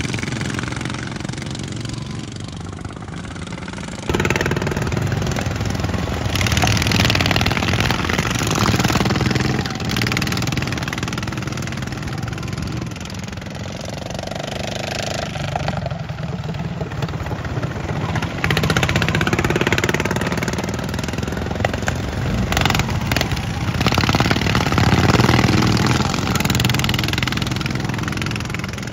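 Engines of several racing lawn mowers running and revving as the mowers race past, the sound swelling and fading as they come and go.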